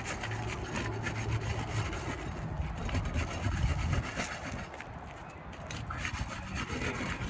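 A flat tool scraping and rubbing under roof shingles, working along to break them loose from their seal.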